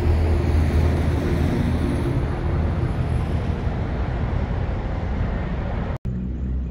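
Steady rumble of road traffic, strongest in the low end, cut off briefly about six seconds in where the sound changes to a similar rumble.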